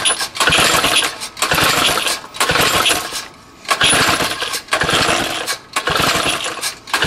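3 hp Tecumseh small engine being pull-started over and over, cranking with a rattling whirr about once a second without catching. The owner suspects it may be out of gas.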